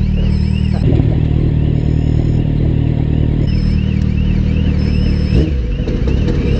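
Motorcycle engines idling, with a level-crossing warning signal sounding a rapid, repeating electronic warble, about three pulses a second, that warns of an approaching train.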